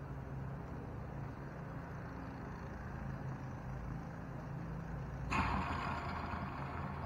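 Steady low hum of a running vehicle engine, with a sudden loud hiss breaking in about five seconds in and carrying on.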